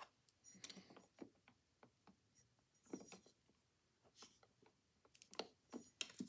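Near silence with faint, scattered small clicks and taps, about one every half second, from handling tools and parts on an Amberola V phonograph motor.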